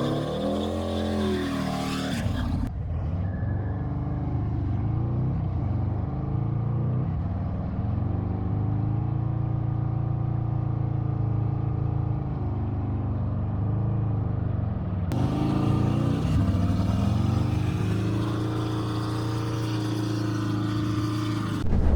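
Harley-Davidson Road Glide's V-twin engine revved hard and held at high revs during a rear-tire burnout, its pitch rising and dipping. The sound shifts abruptly, duller at about three seconds in and brighter again at about fifteen seconds.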